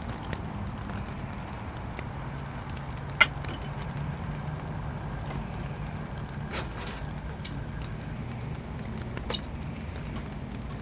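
Steady rain with a few sharp drops or taps striking close by. The loudest strikes about three seconds in, and two lighter ones come later.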